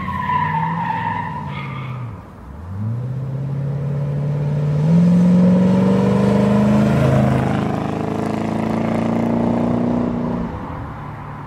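Corvette C3's V8 engine pulling hard as the car drives past. Its pitch dips sharply about two seconds in, then climbs and holds high before dying away near the end.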